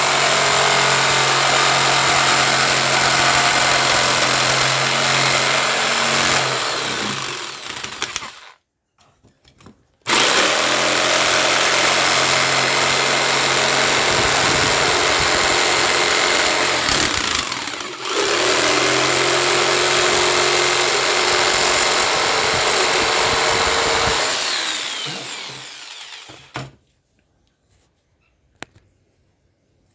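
Handheld electric jigsaw running and cutting through a thin wooden board. It stops for about a second and a half near a third of the way in, starts again, dips briefly midway, then spins down and stops near the end, followed by a small click.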